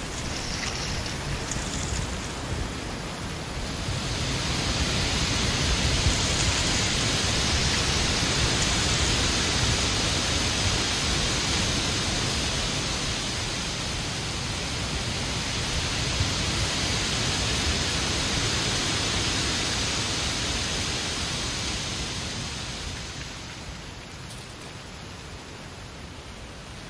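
Strong wind gusting through trees, with dry autumn leaves rustling and blowing in a steady hiss. The gust swells about four seconds in and eases near the end.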